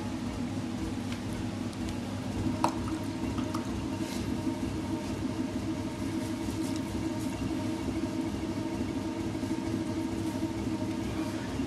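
Electric potter's wheel running with a steady hum while wet clay is worked on it by hand. A single sharp click about two and a half seconds in.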